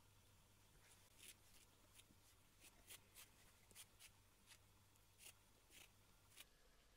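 Near silence with about a dozen faint, short scratchy ticks: cats licking and mouthing a fabric shrimp kicker toy dusted with catnip powder, sped up to double speed. A low steady hum runs underneath and drops out near the end.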